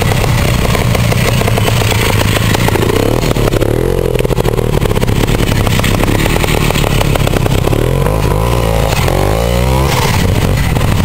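Trial motorcycle engine revving up and dropping back in repeated bursts as the bike climbs a steep dirt slope, with rising and falling engine pitch twice in the stretch.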